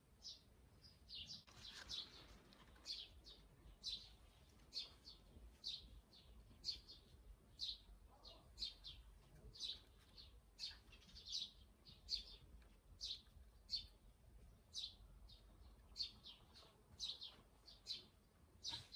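A bird chirping over and over outdoors, short high chirps about two a second.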